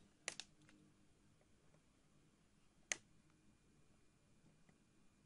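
Sharp clicks of pliers prying electrolytic capacitors off an ECU circuit board: a quick double click just after the start and a single click about three seconds in, otherwise near silence.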